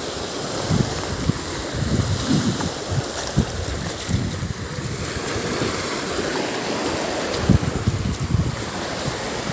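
Shallow waves washing and foaming over a broken concrete shoreline, with wind gusting on the microphone in uneven low buffets.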